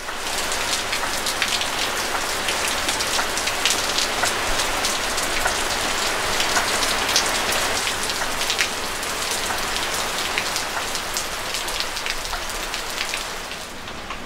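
Heavy rain falling on garden foliage and the ground: a steady hiss dotted with the sharp taps of individual drops, easing a little near the end.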